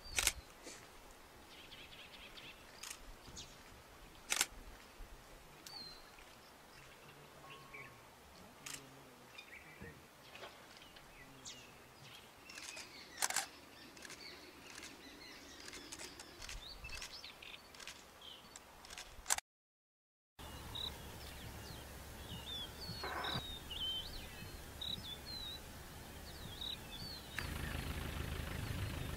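Open-air nature ambience with scattered bird chirps and a few sharp clicks. After a brief dropout about two-thirds of the way in, the chirping is busier, and the low rumble of an engine comes in near the end.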